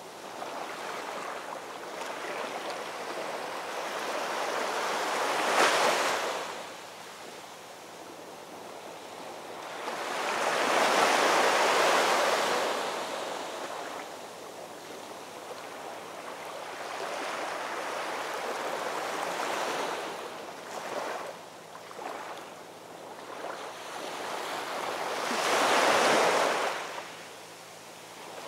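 Ocean surf: waves breaking and washing in, surging about every six to seven seconds and falling back between.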